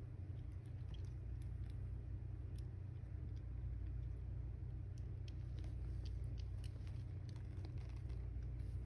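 Mother cat purring steadily, a low rumble, while her newborn kittens suckle with faint scattered clicks.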